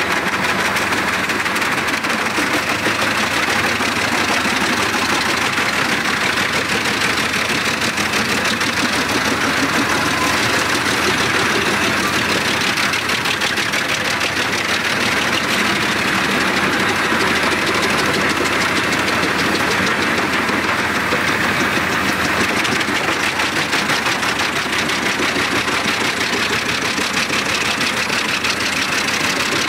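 Albach Diamant 2000 self-propelled wood chipper working under load: its 770 hp six-cylinder engine running hard while heavy logs are chipped and the chips blast out of the discharge spout. A steady, dense noise at an even level.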